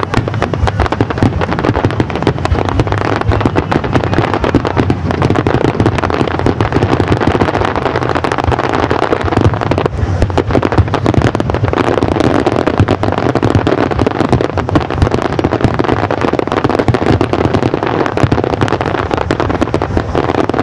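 Aerial fireworks shells bursting in a dense barrage: a steady run of overlapping bangs and crackles with no break.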